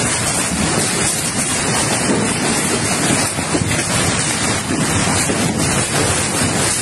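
Hailstorm in strong wind: a dense, steady rush of hailstones pelting the ground, with wind buffeting the microphone.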